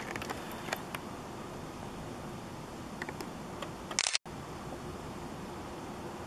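Steady low background noise with a few faint ticks. About four seconds in, a quick cluster of sharp clicks from the video camera's handling and controls, then the sound drops out for a moment where the recording cuts and restarts.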